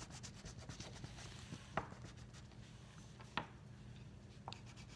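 Faint, rapid back-and-forth coloring strokes scratching on paper, easing off about halfway through, with three light, sharp clicks spread across the rest.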